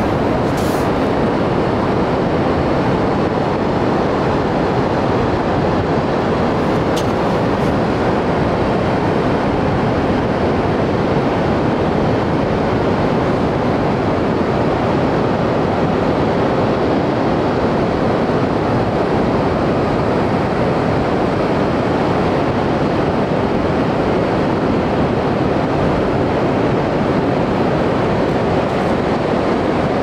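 Pacific Ocean surf breaking on the beach: a steady, unbroken rush of waves at an even level, with no single wave standing out.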